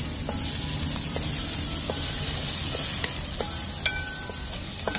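Chopped onions sizzling in coconut oil in a wide metal pan while a spatula stirs them, with scattered taps and scrapes of the spatula against the pan, the sharpest about four seconds in. The onions are nearly softened.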